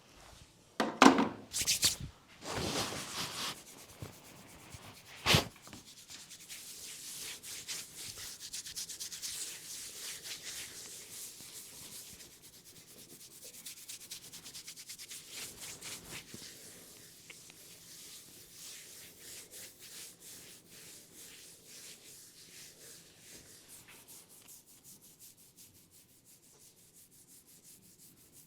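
Hands rubbing a person's scalp and hair during a head massage: a few loud scrubbing strokes in the first seconds and a sharp click about five seconds in, then brisk, steady rubbing that slowly grows fainter.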